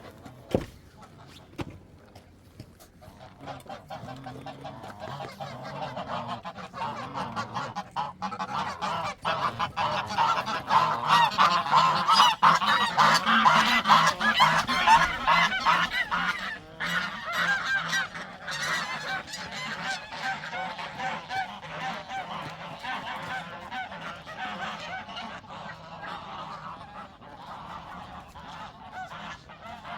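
A flock of geese honking: many overlapping calls that swell to a loud peak midway and then ease off. A single sharp knock sounds just under a second in.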